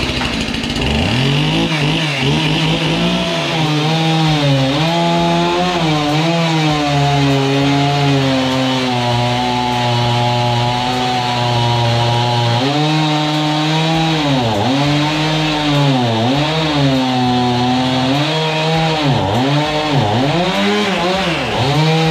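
Two-stroke chainsaw running hard while cutting the end off a big saw log, its engine pitch dipping and recovering again and again as it works through the wood.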